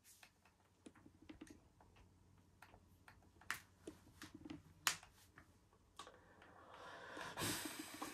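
Scattered soft clicks at irregular intervals, two of them sharper about three and a half and five seconds in: game controller buttons pressed to move across an on-screen keyboard. A brief rushing noise swells up near the end.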